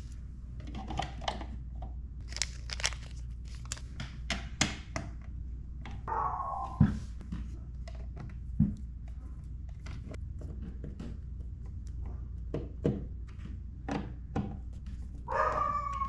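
Screwdriver clicking and scraping as the screws of a plastic outlet wall-plate mounting plate are driven into the receptacle, with two sharper thunks in the middle. A dog whines briefly about six seconds in and again near the end.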